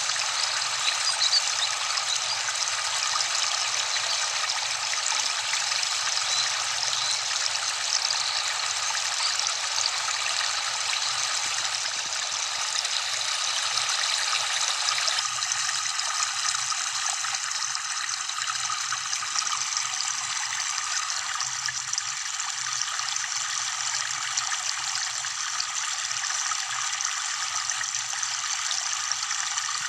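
Steady rushing of running water from a waterfall, an even hiss with no breaks. About halfway through, the deepest part of the rush drops away and the sound turns thinner.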